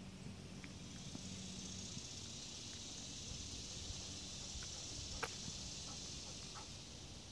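Steady high-pitched insect chorus that swells in after about a second and eases slightly near the end, with a few faint ticks, the sharpest about five seconds in.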